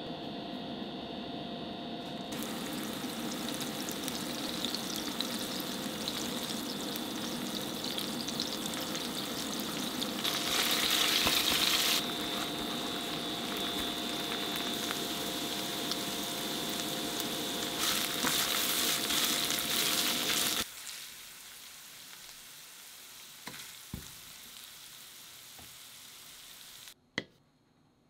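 Ground beef-and-pork mince frying and being stirred in an oiled non-stick pan, sizzling steadily, with two louder spells of sizzling. The sizzling stops about three quarters of the way through, leaving a faint hum with a few light knocks.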